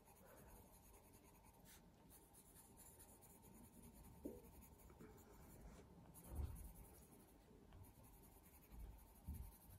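Faint, steady scratching of a coloured pencil shading on drawing paper, with a couple of soft low bumps.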